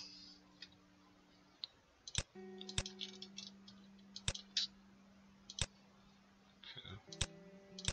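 Scattered clicks of a computer mouse and keyboard: about a dozen sharp single clicks, some in quick runs, over a faint steady low hum.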